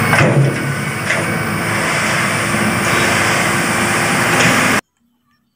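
Dump truck's diesel engine running steadily while its hydraulic tipper raises the bed and the load of soil slides out. The sound cuts off suddenly near the end.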